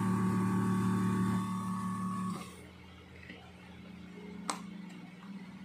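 Reverse-osmosis water machine's pump running with a steady hum, cutting off abruptly about two seconds in. A single sharp click follows near the end.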